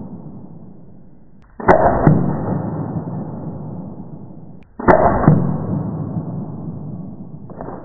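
Three shots from a Tiberius T8.1 paintball marker on CO2 at maximum power striking a leather-covered ballistic gel block. Each is a sudden muffled hit followed by a long rush that slowly dies away: one about a second and a half in, one near five seconds, and one just before the end.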